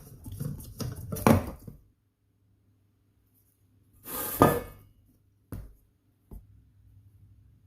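Metal tools and pump parts clinking and clattering as they are handled: a quick run of clinks in the first two seconds, a louder ringing clank about four seconds in, then two short knocks.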